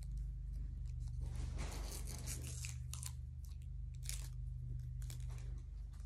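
A small wrapper being torn and peeled open by hand: a run of short rasping rips about a second in, then a few sharp tears later on, over a steady low hum.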